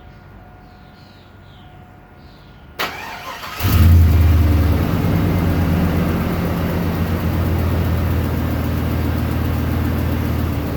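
1999 Chevy Silverado engine turned over by its repaired starter, catching almost at once about three seconds in, with a brief flare before settling into a steady idle.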